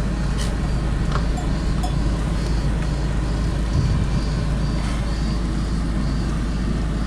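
Steady low rumble of a car engine idling, heard from inside the car, with a few faint clicks.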